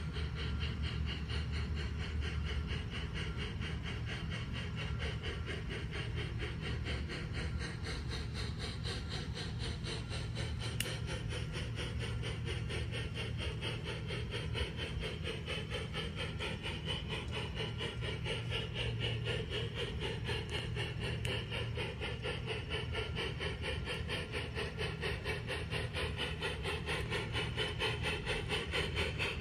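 LGB garden-scale model train running along its track, a rapid, even clicking of its wheels and mechanism on the rails that grows a little louder near the end as it comes closer.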